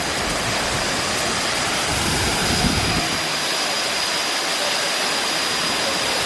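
Waterfall roaring close up, a loud, steady rush of falling water. A low rumble underneath falls away about three seconds in.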